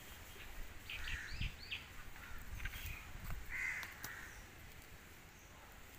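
A few short bird calls over faint outdoor background noise, with a couple of soft low thumps.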